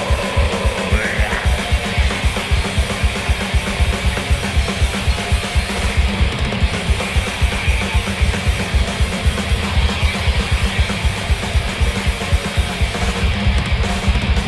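Death metal band playing live: heavily distorted guitars over fast, dense drumming with rapid kick-drum hits.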